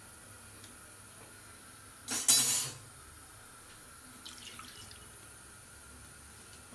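A short burst of running or splashing water about two seconds in, lasting under a second, over a faint steady hum. A few faint light scrapes follow.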